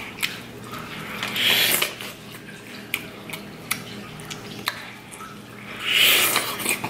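Close-miked eating sounds: two wet bites into a seasoned corn on the cob, about a second and a half in and louder near the end, with sharp mouth clicks of chewing between them.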